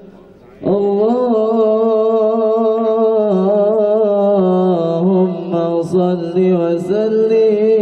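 A man's voice chanting a melodic recitation in long held notes with wavering, ornamented pitch, coming in about half a second in after a short pause for breath.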